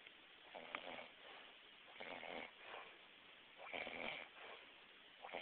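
A sleeping man snoring faintly: several short snores, some in quick pairs, two snores to a breath.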